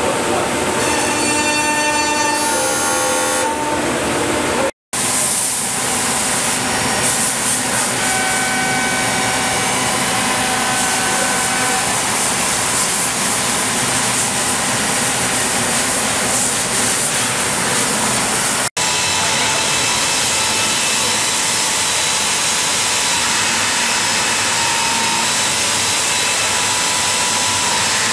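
Busellato CNC woodworking machining centre running, its router spindle cutting a wooden door part over a steady noisy hiss with a high whine. The sound cuts out for an instant twice.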